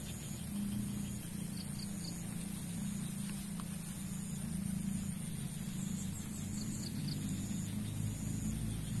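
Steady rain falling on a pond's surface, with a constant low rumble underneath.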